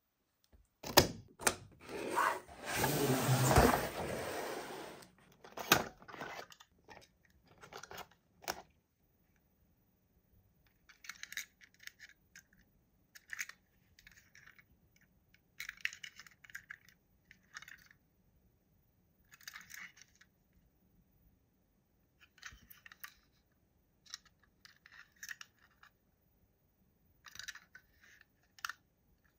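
Toy packaging and toys being handled during an unboxing. A loud rustling, tearing noise starts about a second in and lasts some four seconds. A few sharp clicks follow, then short, scattered bursts of light clicking and scraping.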